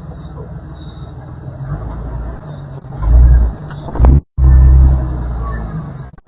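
Jeep engine working under load on an off-road climb, surging louder in two bursts of throttle with a heavy low rumble. The sound cuts out briefly just after the middle.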